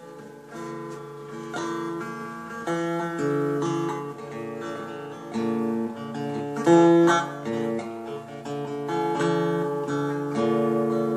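Acoustic guitar strumming blues chords, each chord struck and left ringing.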